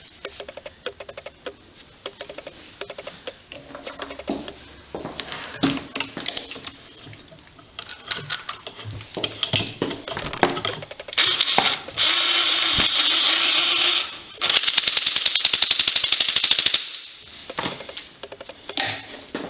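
Metal parts clanking and knocking as a dirt bike engine is handled, with two loud stretches of rapid rattling scraping, one about eleven seconds in and one about fourteen and a half seconds in, each lasting two to three seconds.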